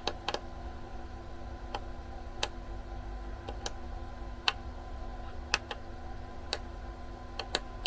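Small push buttons on a Chauvet GigBar IRC's control panel clicking as they are pressed one at a time, about a dozen presses at uneven intervals, stepping through its menu settings over a faint steady hum.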